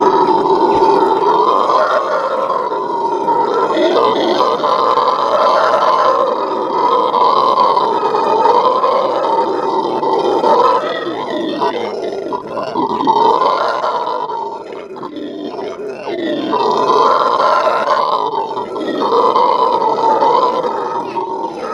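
Venezuelan red howler monkeys howling together in their morning howl chorus. The howl is loud and continuous and swells and fades every second or two. It eases briefly a little past halfway, then builds again.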